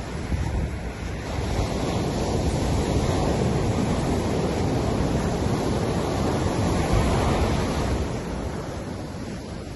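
Ocean surf breaking and washing up a beach: a steady rush of waves that swells through the middle and eases near the end.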